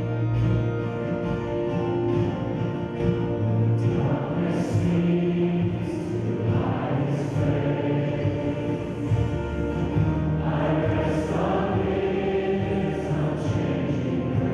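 Choir singing with a sustained instrumental accompaniment under it, holding low notes throughout.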